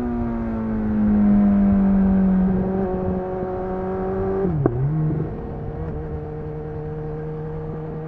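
BMW S 1000 XR's inline-four engine through a Cobra slip-on exhaust with no dB killer, under way with the revs slowly falling and then holding. About four and a half seconds in, the pitch dips sharply with a click and partly recovers, like a gear change. After that it runs steadily at lower revs, a little quieter.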